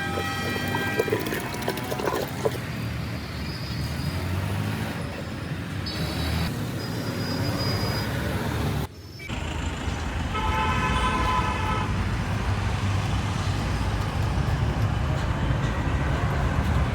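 Road traffic running steadily, with vehicle horns honking: one near the start and a longer one about ten and a half seconds in. The sound drops out briefly about nine seconds in.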